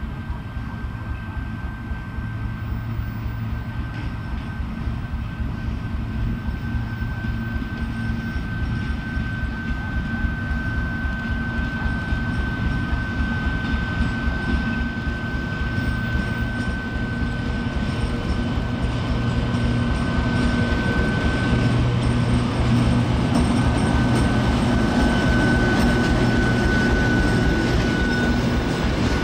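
Freight train of railway tank cars rolling past, its wheels rumbling and clattering steadily on the rails, with a thin steady high squeal from the wheels throughout. It grows louder in the second half as the cars pass close by.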